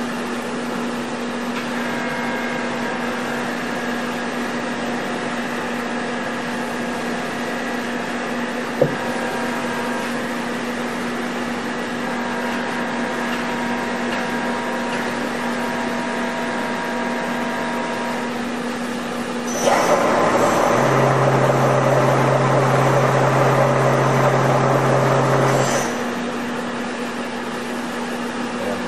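CNC bed milling machine running with a steady machine hum and a single click about nine seconds in. Near the end it gets louder for about six seconds, a rushing noise with a low steady drone, then drops back to the hum.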